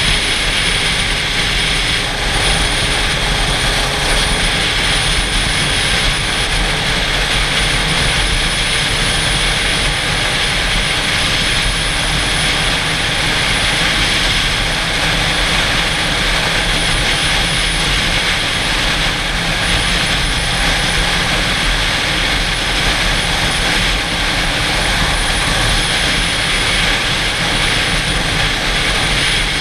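Steady rush of wind over a helmet-mounted camera, mixed with the drone of a sport motorcycle's engine at a steady cruise.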